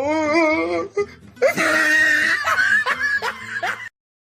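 A person laughing with music, cutting off suddenly to silence near the end.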